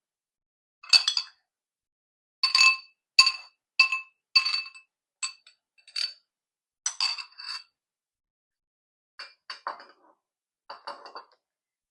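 A spoon clinking and tapping against a serving dish while yogurt is spread over dahi bhalla, about a dozen irregular ringing clinks at the same few pitches, with a short pause after about eight seconds.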